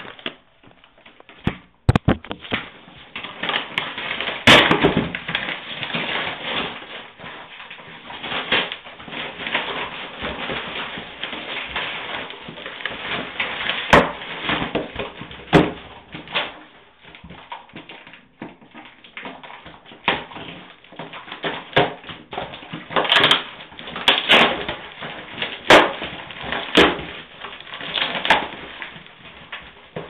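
Cardboard shipping box being torn and pulled open by hand: irregular crackling rips and rustling, with sharp knocks and taps as it is handled.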